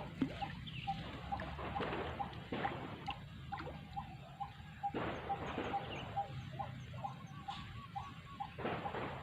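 An animal's short, repeated chirping calls, about three a second, over a steady rushing background with occasional gusts.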